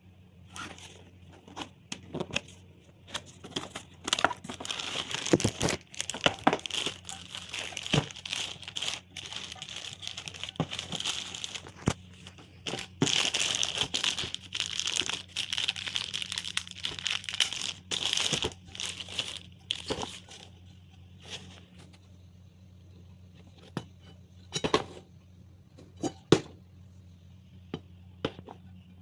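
Packaging being handled and torn open: crinkling and tearing in busy bursts over the first two-thirds, then a few scattered sharp taps and rustles.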